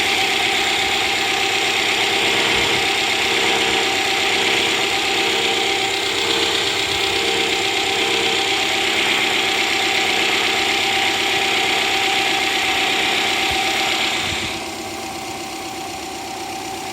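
Subaru EJ20 turbo engine idling with a loud, high-pitched abnormal noise over it that cuts off abruptly near the end, leaving a quieter idle. The owner traces the noise to the intake manifold: it stops when the manifold is pressed downward, appears when it is pulled forward, and occurs only while the engine is cold.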